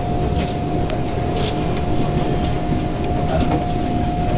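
SMRT C151 metro train running at speed, heard from inside the carriage: a steady rumble with a constant hum at one pitch and occasional faint clicks.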